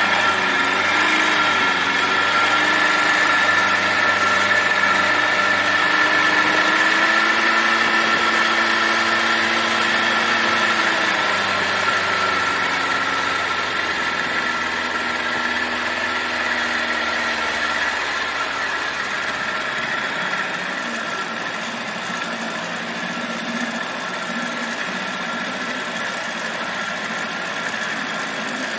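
Boat motor running steadily under way, its pitch wavering slightly, easing off a little in the second half.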